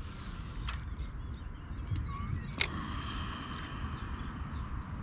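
Outdoor ambience: a steady low rumble with small birds chirping, broken about two and a half seconds in by a single sharp crack followed by a short hiss.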